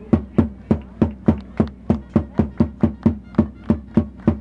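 A drum beaten in a steady, fast rhythm of about four strokes a second, each stroke ringing low: supporters drumming in the stands at a football match.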